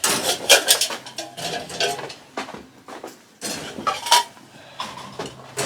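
Rabbit water bowls of frozen-solid water being pulled out and set back in the cages, clinking and clattering in a string of sharp knocks.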